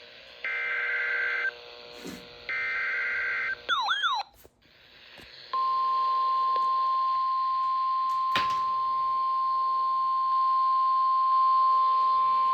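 NOAA Weather Radio Emergency Alert System signal. It opens with two roughly one-second bursts of screeching digital SAME header data tones, then a brief warbling chirp. From about five seconds in comes the steady single-pitch warning alarm tone, with one click of static partway through.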